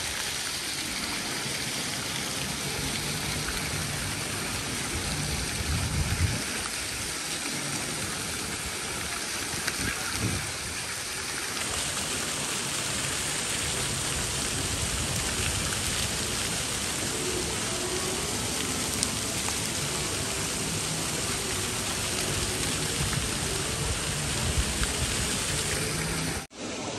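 Water feature in a paved city square, its falling water splashing in a steady rush.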